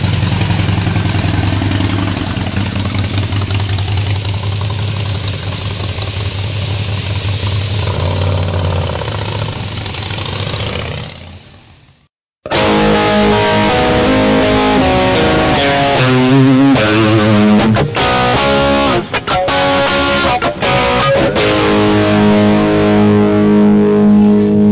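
Harley-Davidson Forty-Eight (XL1200X) 1200 cc V-twin idling steadily through North American-spec mufflers with 12 mm punched-out baffles. The sound fades out about eleven seconds in and gives way to guitar-led music.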